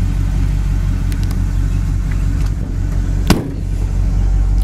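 A pickup's door slams shut once, a single sharp bang about three seconds in, over a steady low hum.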